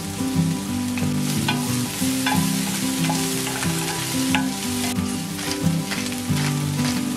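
Food sizzling in a frying pan while being stirred, with irregular clicks and scrapes of the utensil against the pan. Under it runs background music with slow, held low notes.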